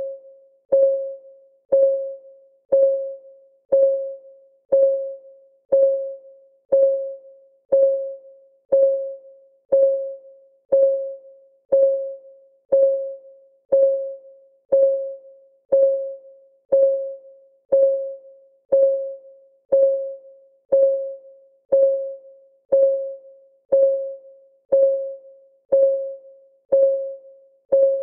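Countdown timer's clock ticking sound: one tick a second, each a sharp click with a short pitched ring that dies away, steady and even.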